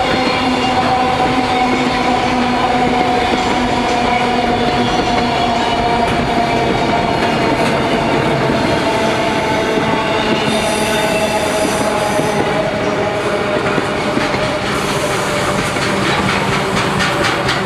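Intermodal freight train's wagons rolling steadily past, with a sustained ringing wheel squeal that sinks slowly in pitch over the clatter of the wheels on the rails.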